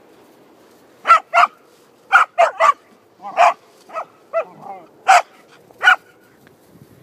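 Australian shepherd puppy barking: about ten short, sharp barks in quick bunches over some five seconds.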